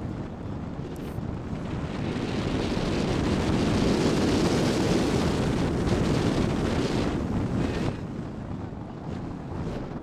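Wind noise from airflow rushing over the microphone of a hang glider in flight. It grows louder about two seconds in and falls back near the end.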